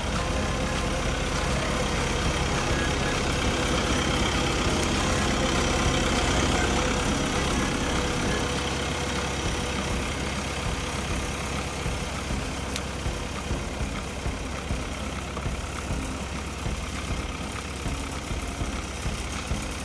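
Bandit SG75 tracked stump grinder running with its cutter wheel grinding a rotten stump. It is loudest through the first half, then eases to a lower, steadier run with irregular short knocks.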